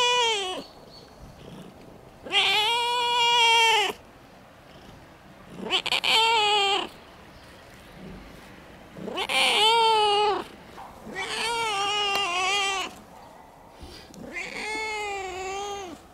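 A young black-and-white female cat giving loud, drawn-out yowling meows while being stroked: the end of one call, then five more, each a second or two long, with a wavering pitch. These are happy calls of pleasure at being petted.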